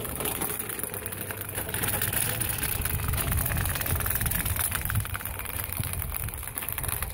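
Two DC electric motors on a homemade tracked dozer, running on a 12-volt car battery and driving the chain sprockets and metal-slat tracks. There is a steady mechanical running sound with a dense, rapid rattle.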